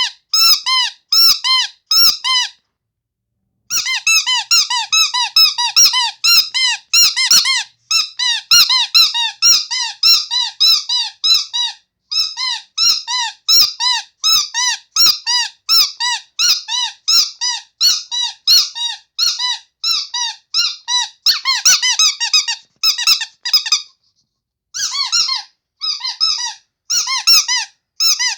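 Rubber squeaky toy squeezed over and over, about three short squeaks a second, each rising and falling in pitch. The run breaks off twice for about a second.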